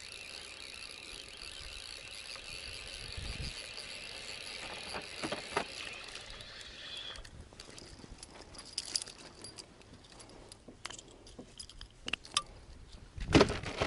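Spinning reel cranked steadily as a perch is reeled in to the boat, its whirr stopping abruptly about seven seconds in. Then light clicks and metallic jangles of the lure and line while the fish is handled, and a single thump near the end.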